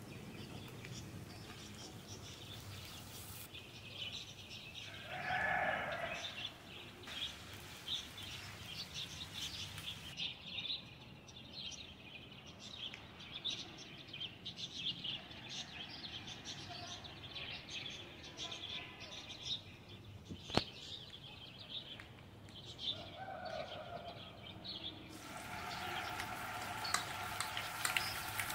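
Oil sizzling and crackling in a frying pan, a faint run of fine ticks, louder and hissier near the end. Two short pitched chirps come through, about 5 seconds in and again after about 23 seconds.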